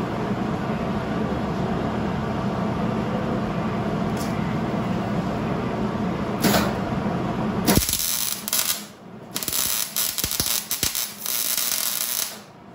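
A steady machine hum for the first several seconds, then a wire-feed welder's arc crackling in a run of short bursts while tack-welding a steel control arm; the crackle stops just before the end.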